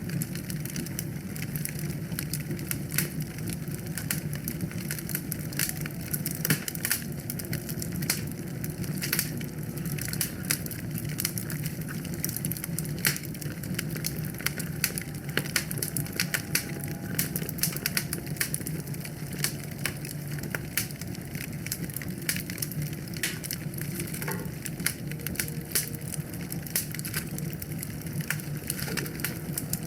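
Wood fire burning in a fireplace, crackling and popping continuously with dense sharp snaps over a steady low rumble.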